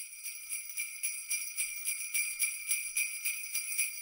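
Jingle bells shaken in a quick, steady rhythm, ringing continuously.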